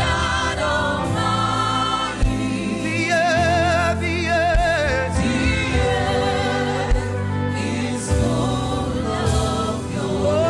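Gospel worship song: voices singing with a wavering vibrato over a band with steady bass and occasional drum hits.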